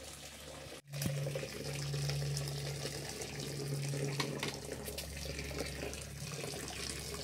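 Rice starch water pouring off a pot of freshly boiled rice into a metal basin, a steady splashing stream as the rice is drained. The sound drops out briefly about a second in, then runs on evenly.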